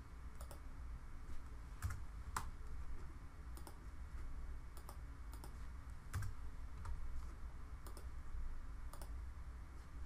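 Scattered keystrokes and clicks from a computer keyboard and mouse as short text is typed into fields, irregularly spaced, over a faint low hum.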